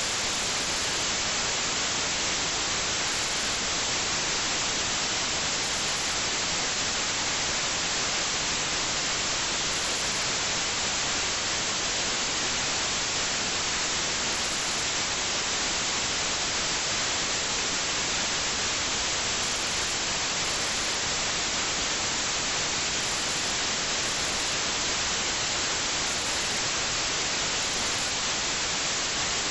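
Steady static hiss, even and unchanging, with no engine or other distinct sound standing out from it.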